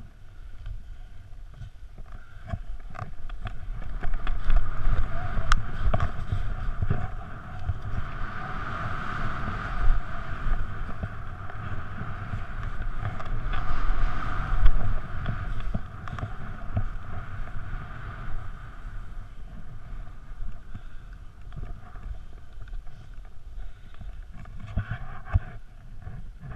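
Wind rushing over a helmet-mounted camera during a telemark ski descent, mixed with the skis hissing through powder snow. The rush swells from about four seconds in, is loudest around ten to fifteen seconds, then eases to a lower, steady level.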